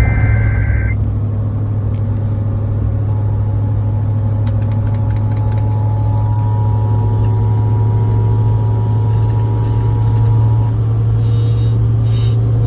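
A car's FM radio plays an Emergency Alert System broadcast inside a moving car. The end of the header's data squeal cuts off just under a second in; then the steady two-tone attention signal sounds for about seven seconds before stopping. A loud, steady low drone from the car on the road runs under it, with a short run of quick clicks about four seconds in.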